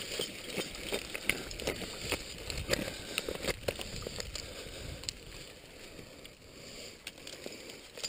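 Ice axe picks striking and chipping into waterfall ice: a run of sharp, irregular knocks and crunches, thick for the first few seconds and thinning out after, over a low rumble.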